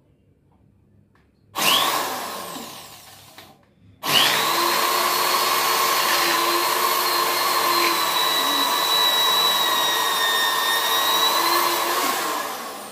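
Handheld electric drill drilling into a ceramic-tiled bathroom wall. A short burst starts about one and a half seconds in and runs down, then after a brief pause the drill spins up and runs steadily with a high whine for about eight seconds, tapering off near the end.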